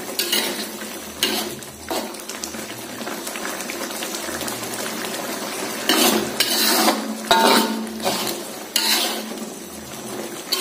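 Metal spatula scraping and clanking against a metal wok as diced potatoes in a bubbling spiced sauce are stirred, over a steady sizzle from the pan. The scrapes come several times, the strongest in the second half.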